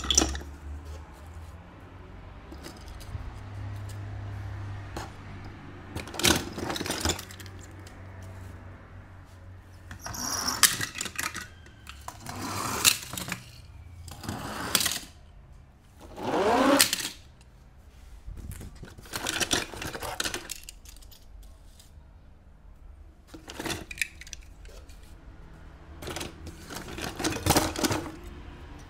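Short bursts of plastic packaging and small die-cast toy cars being handled, with clicks, clinks and crinkles every few seconds over a faint low hum.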